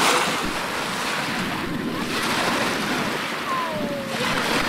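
Waves washing on lake water with wind buffeting the microphone, the noise surging and easing about every two seconds. A few faint gliding calls ride over it near the end.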